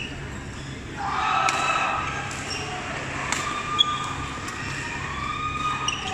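Badminton rally: several sharp racket strikes on the shuttlecock, one of them the loudest sound, over the chatter and calls of many voices echoing in a large sports hall.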